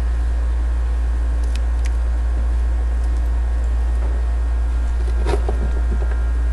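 A steady low hum with a few light metallic clicks, two close together about a second and a half in and a stronger one past five seconds, as a motorcycle roller chain and chain breaker tool are handled.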